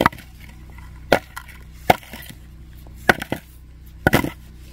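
Freshly dug potatoes tossed one by one into a plastic bowl, each landing with a sharp knock, about five drops roughly a second apart, with two or three quick knocks together near the end.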